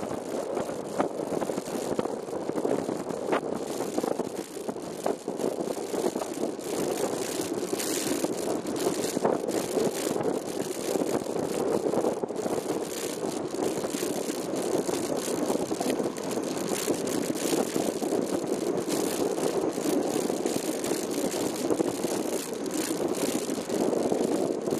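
Bicycle riding along a paved road: a steady rumble of tyre and road noise with frequent small clicks and rattles, the shaking of a camera mounted on the moving bike.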